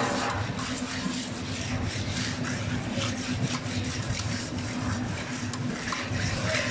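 A steel trowel scraping and tapping over wet stone-chip concrete in repeated short strokes, over the steady hum of an engine running.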